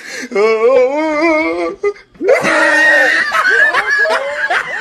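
A high voice wailing with a wobbling pitch, then, after a short break about two seconds in, loud screaming and shrieking from several women with laughter mixed in.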